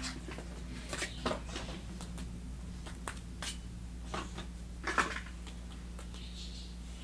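Scattered faint clicks and rustles of small objects being handled, about half a dozen in all, with the loudest a little before the five-second mark, over a steady low hum.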